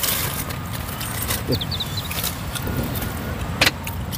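Steady low rumble of road traffic, with a few short clicks from eating and handling food; the sharpest click comes about three and a half seconds in.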